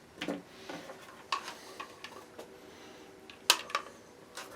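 Scattered clicks and light clatter of an old router being handled, hard plastic and metal parts knocking, with the sharpest click about three and a half seconds in.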